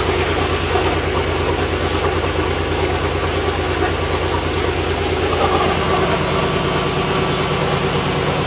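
Freshly rebuilt Komatsu SAA6D170E-5 six-cylinder turbocharged diesel running steadily at idle on a test stand, with an even low pulsing note that shifts slightly about six seconds in.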